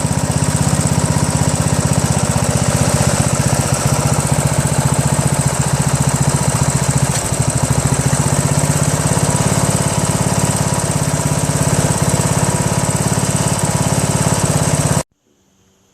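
Briggs & Stratton 15.5 HP engine of a Craftsman lawn tractor running steadily, with rapid, even firing pulses. It cuts off suddenly near the end.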